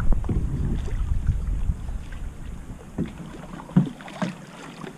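Kayak paddles dipping and stroking through calm water, with a low rumble on the microphone that fades in the second half and three short splashes near the end.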